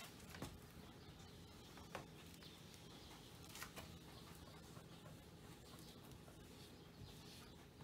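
Near silence: room tone with a few faint, soft ticks.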